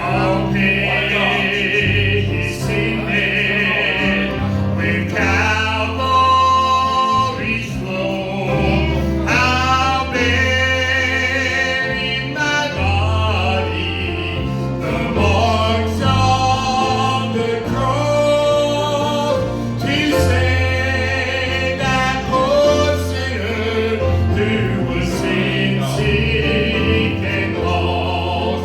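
Southern gospel song: voices singing held, wavering notes over instrumental accompaniment with a steady bass line that changes note every second or two.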